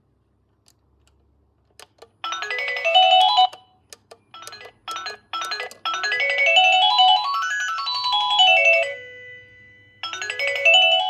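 Electronic doorbell chime playing a beeping melody whose notes step up and down the scale. It starts about two seconds in and breaks off after about a second; a few clicks and short snatches of tune follow. Then the melody plays through from about six to nine seconds and starts again near the end.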